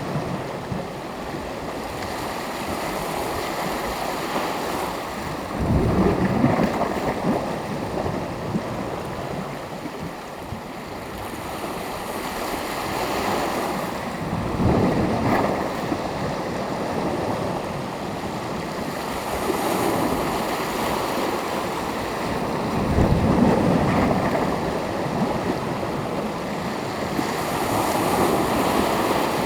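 Sea surf: small waves washing in over a steady hiss of water, with three louder breaks spaced about eight or nine seconds apart.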